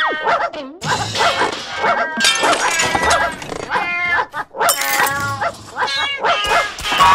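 Cartoon fight sound effects: dogs barking and yelping amid crashes and clatter, over music.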